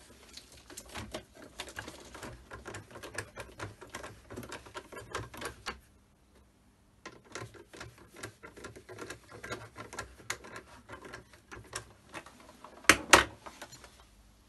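Screwdriver turning screws into the plastic housing of a Dyson DC39 vacuum: runs of rapid small clicks and scrapes, with a brief pause about halfway. Two loud knocks come near the end.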